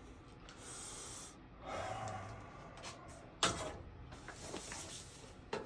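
Faint rustling and breathy hissing of close handling, with a sharp tap about three and a half seconds in and another near the end.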